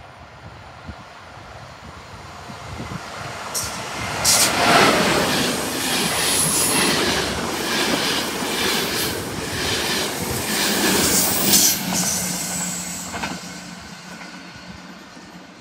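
Loco-hauled passenger train of blue-and-white coaches passing close by: wheels click in a steady rhythm over rail joints, with brief high wheel squeals. It builds up about three seconds in and fades as the train draws away near the end.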